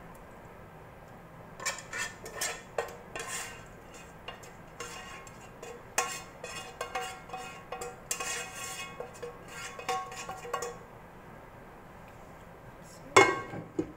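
A utensil scraping and knocking against a frying pan as food is scraped out into a stainless-steel roasting tray, in irregular clattering strokes with the metal ringing. A quiet pause follows, then a single loud metal clank near the end.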